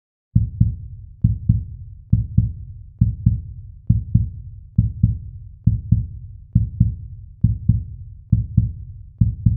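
Heartbeat sound effect: paired low thumps, lub-dub, repeating steadily about once a second, starting just after a short silence.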